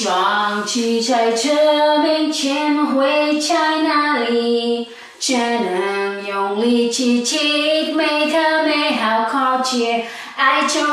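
A woman singing a Mandarin pop song unaccompanied, with a short breath break about halfway through.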